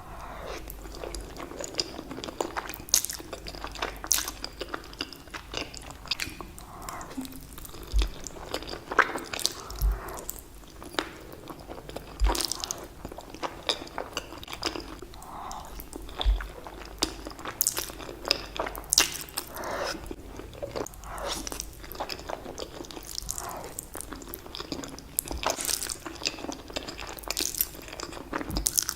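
Close-miked chewing of spaghetti: wet mouth noises with many short, sharp clicks and smacks.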